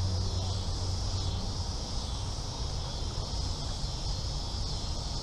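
Steady, high-pitched chorus of summer insects, with an even drone that does not change, over a low, uneven rumble from wind on the microphone.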